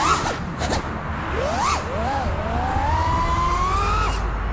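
FPV quadcopter's brushless motors whining, the pitch jumping up and dropping sharply several times as the throttle is worked, then climbing slowly for a couple of seconds before falling away suddenly near the end.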